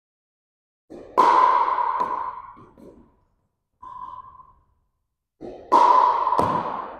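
Pickleball paddles striking the plastic ball: a hard pock about a second in, a fainter one near the middle, and two more close together near the end, each ringing on in the gym's echo.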